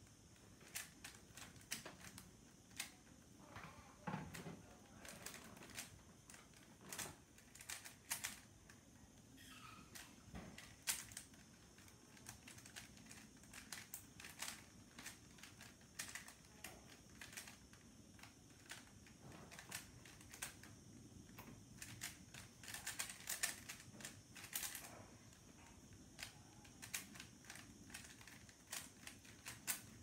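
Black plastic 3x3 Rubik's Cube being turned at speed in the hands: faint, irregular clicking of the layers snapping round, coming in quick runs with short pauses between them.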